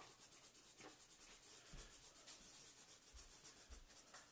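Felt-tip marker scratching faintly across paper in quick, light back-and-forth shading strokes.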